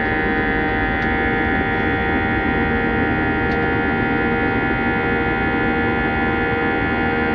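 Airbus A320 cabin noise in flight: a steady engine drone and rushing air with several steady whining tones, unchanging in level.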